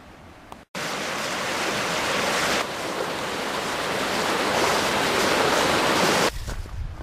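A steady, loud rushing noise, even and without any pitch, that cuts in suddenly just under a second in after a faint hiss and stops shortly before the end.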